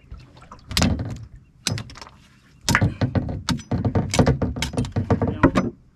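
Cut bamboo pole being handled: a knock or two, then a fast run of clacks and rattles lasting about three seconds.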